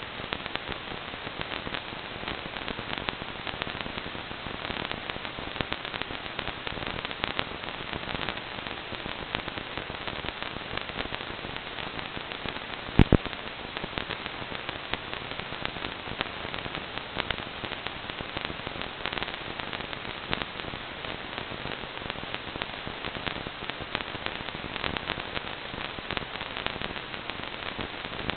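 Crackling static hiss from an analog FPV video receiver picking up no signal, with one louder pop about thirteen seconds in.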